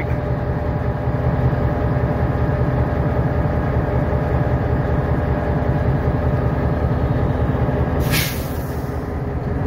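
Diesel locomotive engine running steadily close by. About eight seconds in there is a short, sharp hiss of air.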